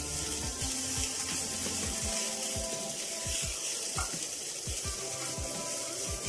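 Garlic and ginger paste frying in oil in a nonstick kadai, with a steady sizzle and repeated scrapes and taps of a wooden spatula stirring it.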